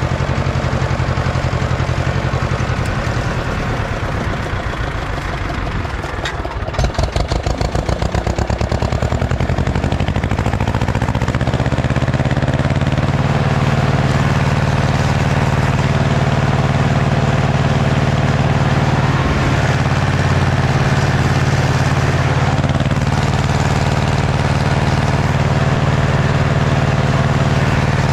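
Ursus C-335 tractor's diesel engine running under load pulling a disc harrow. Around seven seconds in it pulses rapidly for a couple of seconds, then its speed rises and it holds a steady, higher note for the rest of the time.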